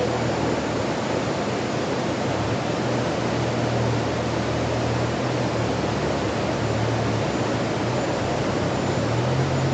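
Stream water rushing steadily, with a low rumble that swells and fades beneath it.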